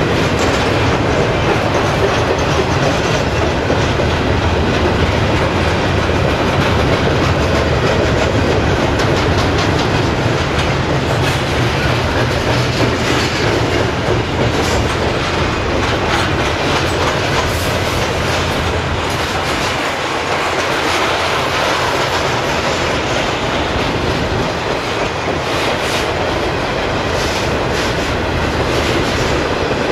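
Freight train cars rolling past close by, first loaded flatcars and then tank cars, with a steady rumble and the wheels clicking over rail joints.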